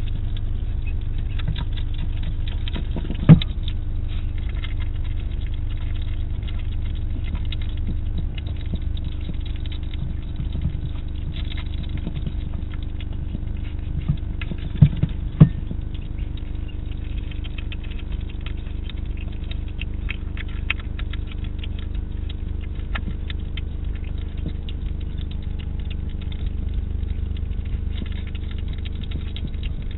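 Hedgehog eating from a food dish, a dense run of small crunching and smacking clicks, with a few louder knocks: one about three seconds in and two close together around fifteen seconds in. A steady low hum runs underneath.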